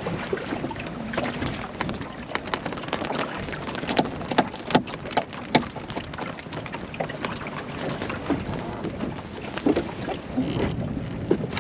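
Water splashing and slapping against the hull of a small wooden sailing dinghy under way, a steady wash broken by sharp slaps and knocks, loudest about four to five and a half seconds in.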